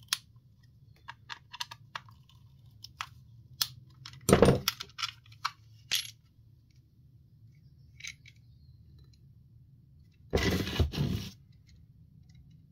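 Small hard parts and tools being handled: scattered light clicks and taps, with a short loud clatter about four seconds in and a longer rattling clatter about ten seconds in.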